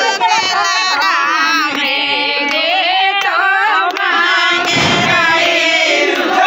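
A crowd of people shouting and singing together loudly, many voices at once, with a few faint sharp clicks.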